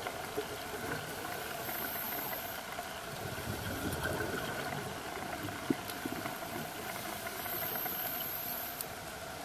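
Underwater sound picked up through a camera housing: a steady engine-like hum, with scuba regulator breathing over it, two brief high hisses of inhalation about six seconds apart and a bubbling rumble of exhaled air between them.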